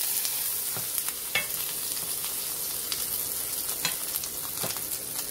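Oil sizzling steadily in a hot frying pan while an omelette is lifted out with a spatula, with a few short clicks of the spatula against the pan.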